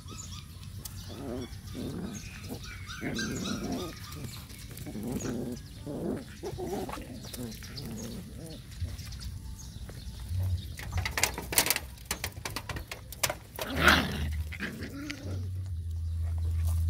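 Young puppies whining and squeaking in short calls as they push in to nurse, with one louder cry about fourteen seconds in. Sharp clicks and a low rumble come through in the second half.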